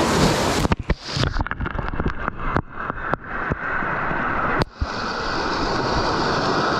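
Surf washing onto the beach, a steady rushing noise. For the first few seconds it is broken by a run of sharp crackles and brief dropouts, then it runs on smoothly.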